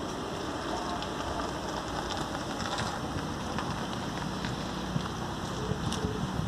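Steady outdoor background noise picked up by a phone microphone, an even rushing hiss with a few faint ticks.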